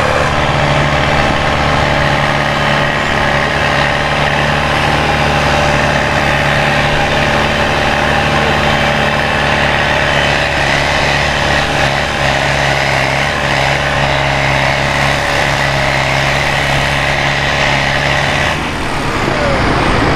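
Valmet 985 tractor's diesel engine running hard and steady on a tractor-pulling run, sagging slightly in pitch about twelve seconds in, then falling away near the end.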